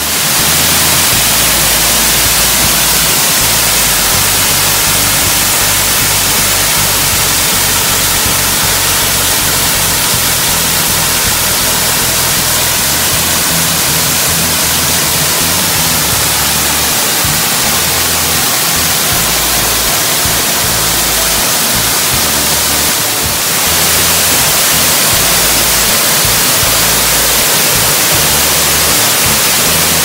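Waterfall pouring and splashing close to the microphone: a loud, steady rush of falling water, with music underneath.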